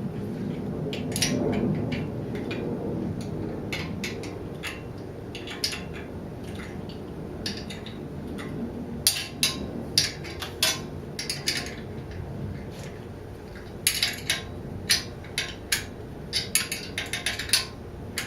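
Hand wrench on the Honda CL160's 10 mm exhaust nuts: short metallic clicks and clinks in irregular clusters as the tool is set on and worked, thickest in the second half.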